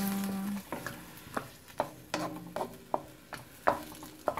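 A spatula stirring chicken pieces and onions in a metal wok, knocking against the pan two or three times a second, each knock ringing briefly, with the food sizzling faintly.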